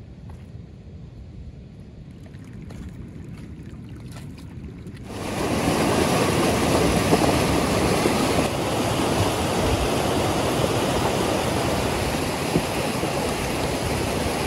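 Quieter low outdoor rumble, then about five seconds in the loud, steady rush of a fast, churning mountain river in spate cuts in abruptly.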